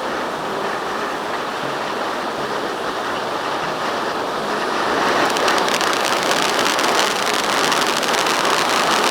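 Ice Cream Cone fountain firework spraying with a steady loud hiss. About five seconds in, dense rapid crackling joins the hiss.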